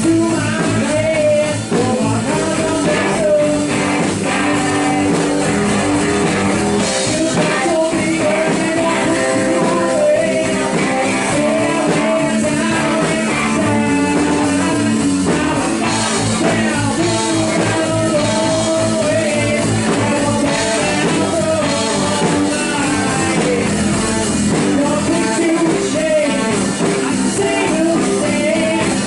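Rock band playing live: a singer over electric guitar and a full band.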